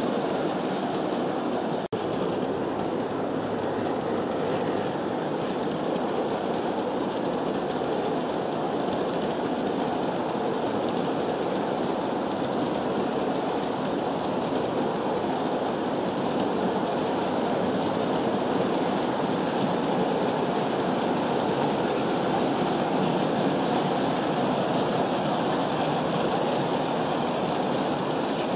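G-scale model train running along the track, the steady rolling noise of its wheels on the rails, with a momentary dropout about two seconds in.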